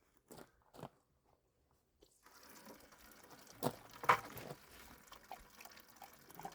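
Water running from a storage tank into a 5-gallon bucket, starting about two seconds in, with a couple of louder knocks against the bucket partway through.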